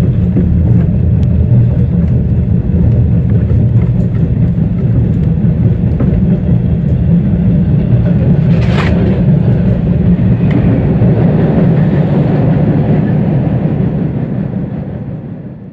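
Subway train running with a loud, steady low rumble, a short hiss about nine seconds in, fading out near the end.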